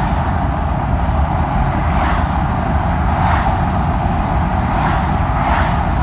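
Steady road noise inside a moving vehicle's cab: a low rumble of engine and tyres, with wind noise that swells now and then.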